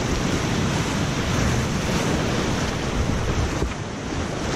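Whitewater rapids rushing and splashing close around a whitewater kayak as it paddles through a rapid, with waves breaking over the boat.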